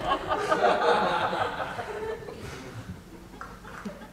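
Audience laughing, the laughter dying away about two seconds in.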